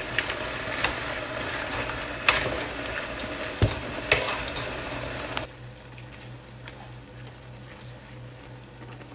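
Beef and squash blossoms sizzling in a frying pan as they are stirred with wooden chopsticks, which click against the pan a few times. About five seconds in the sizzle drops off abruptly to a faint hiss.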